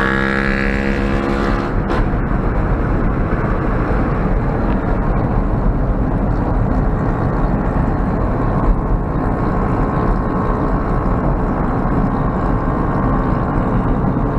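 Honda CG Fan 150 single-cylinder engine with a loud exhaust: a high-revving note fades out over the first two seconds, then the engine runs steadily at low revs.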